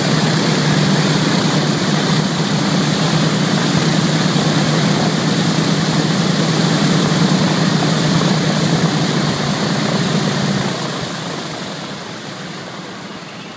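Boeing B-17's four Wright R-1820 Cyclone nine-cylinder radial engines idling with a steady low drone. About eleven seconds in the engine note drops away and the sound fades steadily as the engines are shut down.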